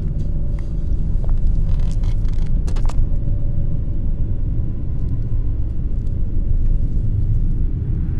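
Cinematic atmosphere sound effect: a steady low drone of the kind laid under tense, mysterious or suspenseful scenes, with a couple of faint ticks about two to three seconds in.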